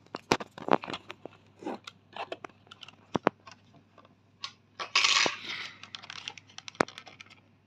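Small plastic clicks and taps from hands working the drive belt back onto the laser distance sensor (LDS) turret and pulley of an Ecovacs Deebot Ozmo 950 robot vacuum, with a brief scraping rustle about five seconds in.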